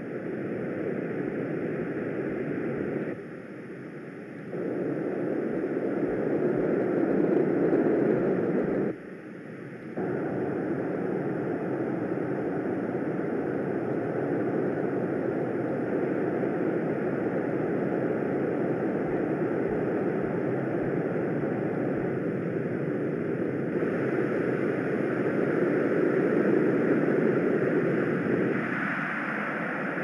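Shaped noise from a customizable online noise generator, a deep, dull rush with its high frequencies turned off, layered with the generator's trees, ocean and wind background sounds. It cuts out briefly twice in the first ten seconds, then swells and ebbs slowly as the EQ fluctuations are turned up.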